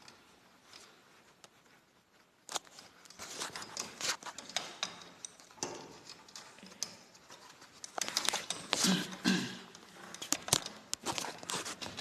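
Tools and metal hardware being handled on a garage door torsion spring assembly: scattered clicks, clinks and rattles that start about two and a half seconds in.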